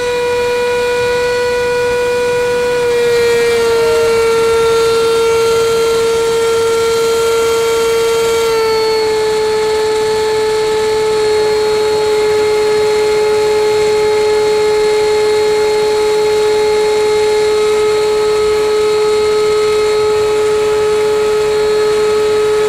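Steady high-pitched whine of a radio-controlled L-39 Albatros model jet's power unit in flight, heard from a camera on the airframe, over a rush of passing air. The pitch steps down slightly a few times.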